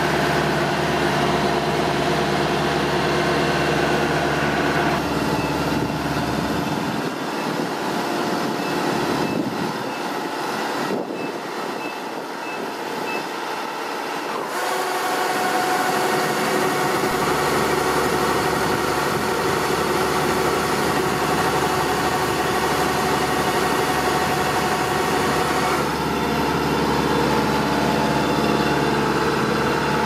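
Kubota DC-105X combine harvester's diesel engine running steadily while it unloads threshed rice through its unloading auger. A series of short, evenly spaced high beeps sounds for a few seconds in the middle.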